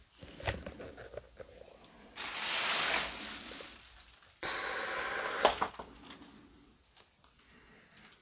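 Two long, noisy breaths close to the microphone, about a second and a half each, with a few light clicks and rustles of handling and footsteps around them.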